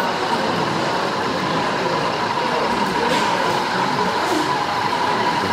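Model diesel locomotive's sound decoder playing a diesel engine running steadily through the model's small speaker, with a steady high whine, as the OO gauge locomotive moves slowly out of the depot.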